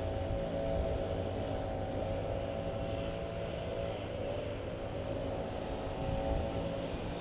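A steady engine drone holding one pitch, with a slight dip about four seconds in.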